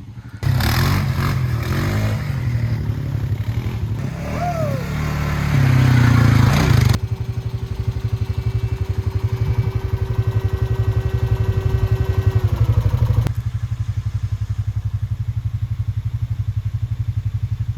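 A vehicle engine labouring through a muddy track, with clattering and scraping, getting louder up to about seven seconds in. Then the engine runs on steadily with a rhythmic low throb and a held whine that drops away about twelve seconds in.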